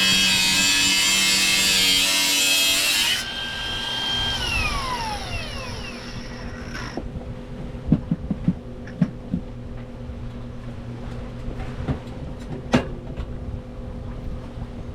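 Background music ends about three seconds in. A high machine whine then holds briefly and glides steadily down in pitch until it fades. A steady low hum is left, with a few sharp knocks and clicks, most of them about eight to nine seconds in and one near thirteen seconds.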